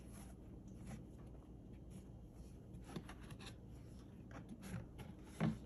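Faint rustling and soft taps of hands handling a rigid cardboard gift box and its ribbon, with a short muffled thump near the end.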